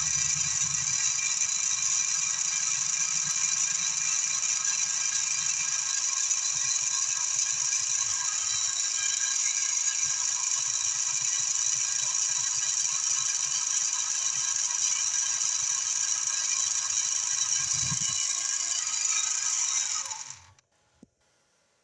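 Electric machine tool running steadily with a high whine and a mechanical rattle, working a piece of S7 tool steel; it is switched off and winds down about 20 seconds in.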